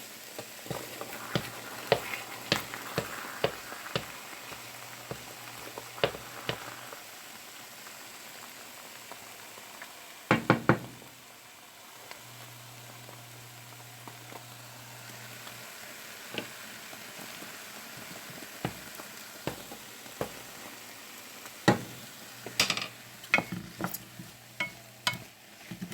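Omelette ingredients of mushrooms, pepper and ham sizzling steadily in a frying pan, with a spoon knocking and scraping against the pan in spells: near the start, about ten seconds in, and again near the end.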